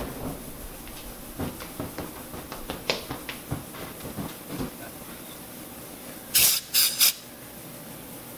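A small fire of contact cleaner burning on a shop rag, with faint scattered crackles and ticks. About six and a half seconds in come three short, loud hissing bursts, as the flames are put out and the rag is left smoking.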